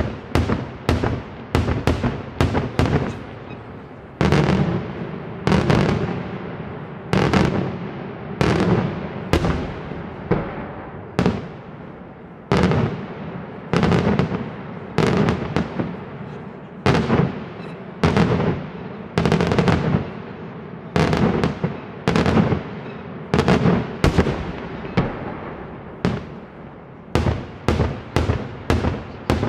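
A daytime fireworks display: aerial shells bursting in a continuous series of loud bangs, one to three a second, sometimes in quick clusters, each followed by a rumbling echo.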